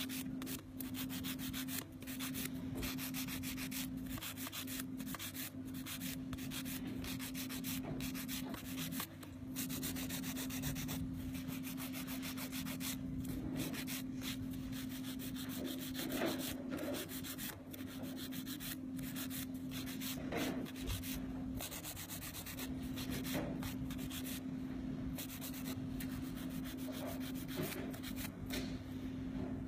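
Hand nail file rasping across an artificial nail tip in quick, steady back-and-forth strokes, shaping the nail.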